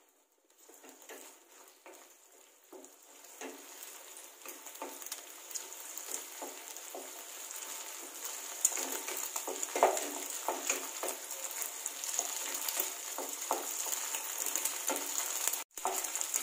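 Beaten eggs sizzling in hot oil in a stainless steel kadai while a wooden spatula stirs and breaks them up, with irregular scrapes and taps against the pan. The sizzle starts faint and grows steadily louder.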